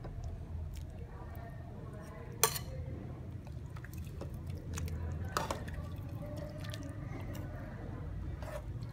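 Metal spoon clinking against a ceramic soup bowl and moving through the broth: one sharp clink about two and a half seconds in, and two fainter ones later. A low steady hum runs underneath.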